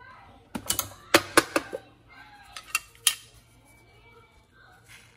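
Sharp clinks and clatter of a stainless steel pour-over dripper and glass carafe being handled: a quick run of hard knocks about half a second to two seconds in, then a couple more near three seconds.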